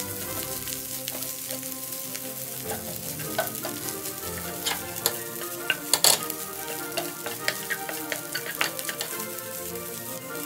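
Fried rice sizzling in a stainless steel pan over a gas flame while a wooden spatula stirs and scrapes it, with many sharp knocks of the spatula against the pan, a loud cluster of them about six seconds in.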